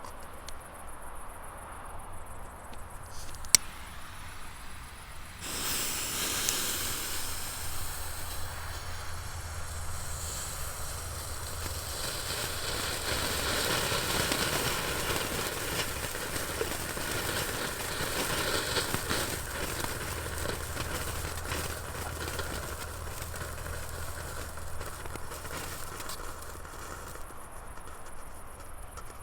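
Consumer firework fountain burning with a steady hiss and dense crackle for about twenty seconds, starting about five seconds in. It is preceded by a single sharp snap.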